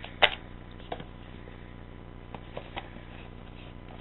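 One sharp click about a quarter second in, then a few fainter taps and clicks: small objects from a phone box, its accessories and packaging, being handled and set down.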